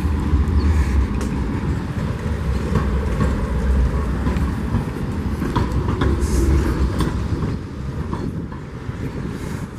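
An old tram (streetcar) running along its rails: a steady low rumble with scattered clicks and clacks from the wheels and track, easing off after about seven and a half seconds.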